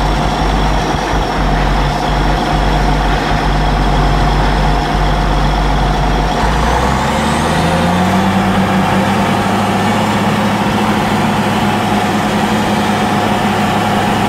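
Cat D6R bulldozer's diesel engine heard from inside the cab, running steadily, then speeding up about seven seconds in, its pitch rising and staying higher. A high thin whine climbs in pitch just as the engine picks up.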